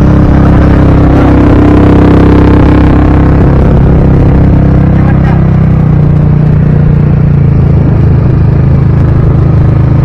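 Quad bike (ATV) engine running steadily as it is ridden over sand; the engine note drops to a lower pitch about halfway through.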